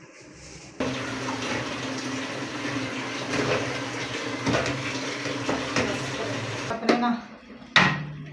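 Tap water running steadily into a kitchen sink while an aluminium pressure-cooker pot is rinsed and scrubbed under it. Near the end the water stops and the metal pot and lid knock sharply twice as they are handled.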